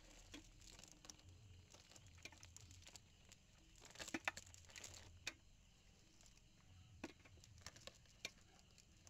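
Faint rustling and crinkling of a fine nylon fishing net being pulled through the hands, with scattered light ticks and taps, busiest about four seconds in, as small fish are picked out of the mesh.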